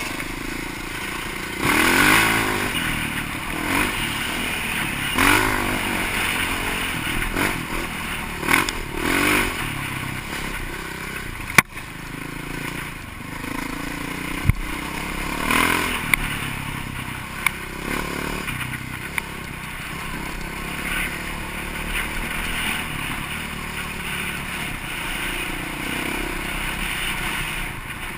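Off-road vehicle engine running and revving in repeated swells while driving over rough ground, with clattering and a couple of sharp knocks about 12 and 14 seconds in.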